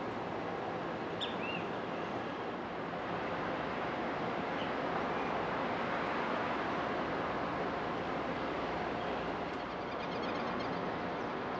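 Steady outdoor background noise, an even rumble and hiss, with a few short high chirps now and then.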